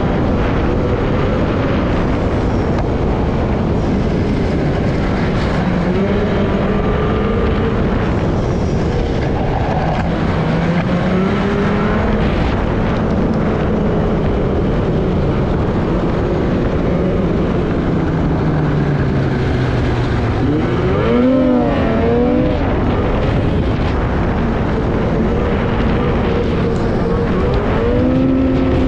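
Snowmobile engine running at trail speed from the rider's seat. Its pitch slowly rises and falls with the throttle, with a quick rev-up about 21 seconds in and another near the end, over a constant rushing noise.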